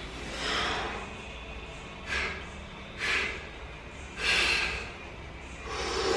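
A weightlifter's heavy breathing while he stands under a loaded barbell between squat reps: about five short, forceful breaths at uneven intervals as he catches his breath before the next rep.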